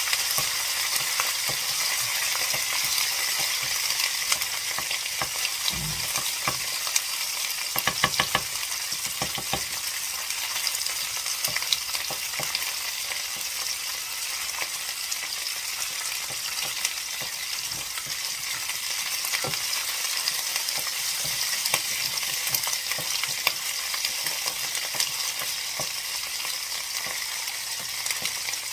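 Tomato paste sizzling in a stainless steel pot with beef short ribs while a wooden spoon stirs and scrapes the bottom, at the stage of cooking out the paste. A steady sizzle runs throughout, with scattered spoon clicks and a short run of sharper scrapes about eight seconds in.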